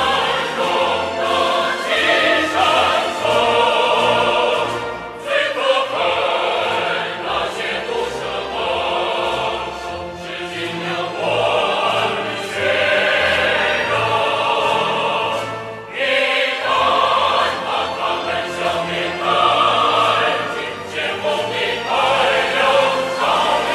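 Music with a choir singing, dipping briefly about five seconds in and again near sixteen seconds.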